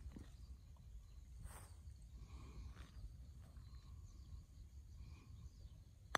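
Quiet outdoor ambience with a low rumble and faint chirping, then near the end a single sharp click as a Masuda Golf STUDIO-3 putter strikes a golf ball.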